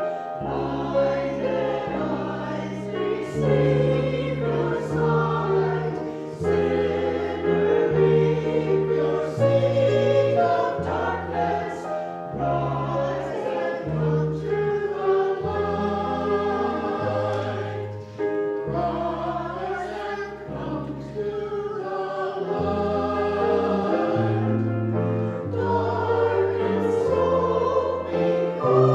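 Choir singing a hymn over instrumental accompaniment, with long held bass notes that change about once a second.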